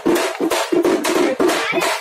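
Drums beaten hard in a fast, even rhythm, about five strokes a second.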